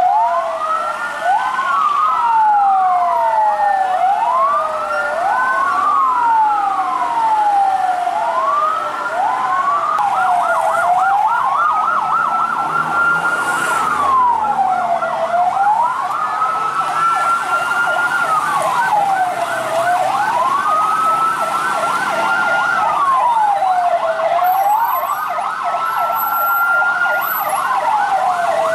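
Emergency vehicle sirens wailing, several at once. For the first ten seconds two wails rise and fall out of step. After that one slower wail rises and falls about every four seconds, over a fast warbling siren.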